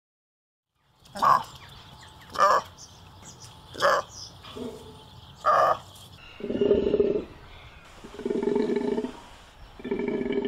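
Golden takin calling: four short, sharp calls spaced a second or so apart, then three longer, lower calls of about a second each.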